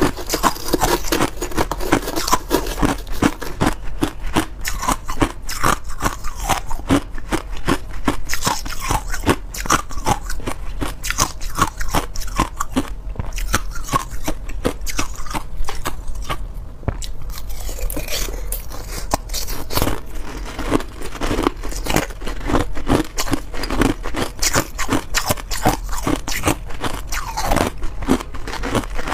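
Crushed ice bitten and crunched between the teeth in a rapid, irregular run of cracks, close to a clip-on microphone. A metal spoon scrapes and scoops ice in a plastic tub.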